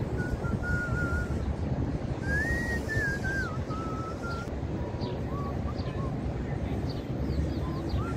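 A person whistling a slow, wandering tune: single pure notes that hold and glide up and down, over a steady low background rumble.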